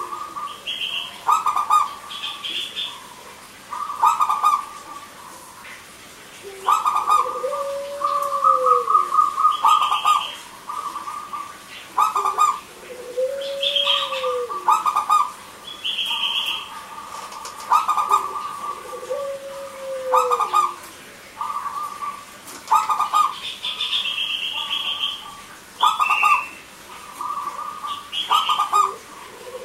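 Zebra doves (perkutut) cooing: repeated phrases of rapid staccato coos, with a lower rising-and-falling coo several times and short higher chirps between the phrases.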